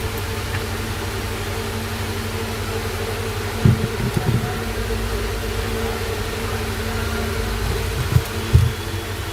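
A steady low mechanical hum, like a running fan, with a few brief low thumps about four seconds in and twice more near the end.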